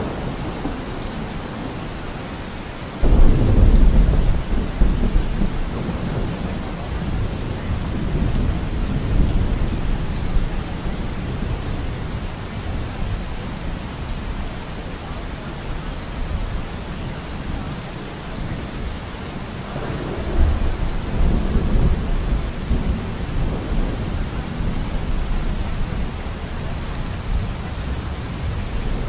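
Steady rain with thunder: a sudden loud thunderclap about three seconds in rumbles off over several seconds, and a second, softer roll of thunder comes about twenty seconds in.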